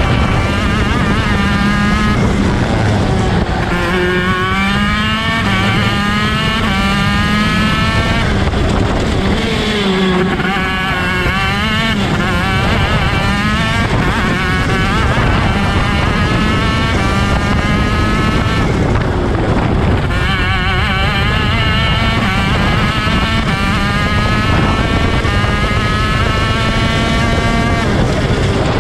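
Onboard sound of a ROK Shifter kart's 125 cc two-stroke engine at race pace. The pitch climbs again and again as it revs out through the gears, then drops sharply at the shifts and when braking for corners.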